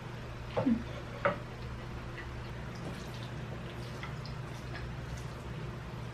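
Mukbang eating sounds: chewing octopus noodles with the mouth closed, with two short, louder mouth sounds about half a second and a second in. Soft scattered ticks of chopsticks against a glass bowl follow, over a steady low hum.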